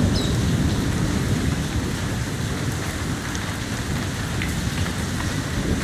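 Steady rain falling on wet pavement and birdcages, a dense even hiss with a heavy low rumble underneath.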